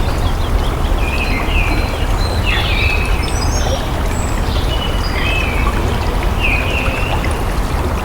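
Steady rush of flowing water, with many short bird chirps over it.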